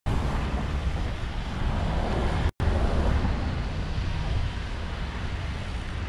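Wind noise buffeting the microphone over passing road traffic, with a brief dropout in the sound about two and a half seconds in.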